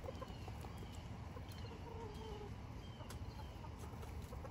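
Faint bird calls: a few short, high chirps that drop in pitch, and a soft, lower call about two seconds in, over a low, steady rumble.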